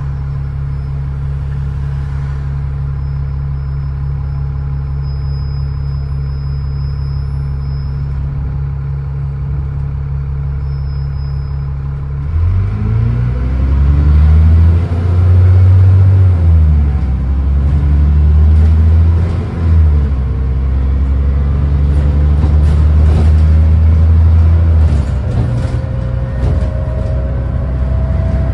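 Double-decker bus engine heard from the upper deck, first idling steadily, then pulling away about twelve seconds in. As it accelerates its pitch rises and drops through several gear changes, and a rising whine comes in near the end.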